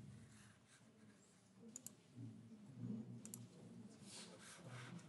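Near-quiet room tone with two quick double clicks about a second and a half apart, typical of a computer mouse, over a faint low murmur.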